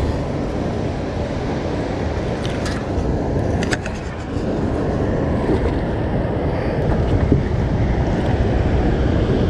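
Steady rushing of water pouring through a dam's open floodgates into the river below, with a few light clicks a few seconds in.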